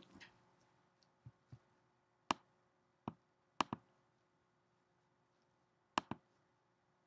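A computer mouse clicking several times, each a sharp double tick of button press and release, with a couple of soft low taps about a second in.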